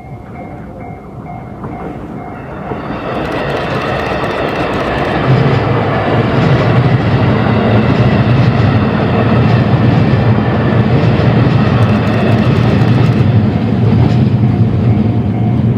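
A JR Freight EF210 electric locomotive hauling a Schiki 801 heavy-load freight wagon approaches and passes close by. The running noise builds over the first few seconds into a loud, steady rumble with wheel clatter on the rails. A level-crossing bell is ringing at the start before the train drowns it out.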